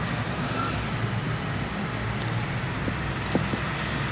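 Steady low rumbling background noise, with a few faint clicks of eating by hand.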